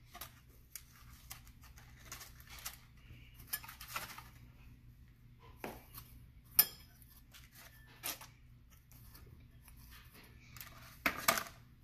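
Quiet handling of marshmallow Peeps being pulled apart and put into a ceramic bowl, with light clinks of a metal spoon against the bowl. Scattered faint clicks and rustles, a sharp tap a little past halfway and a louder rustle near the end.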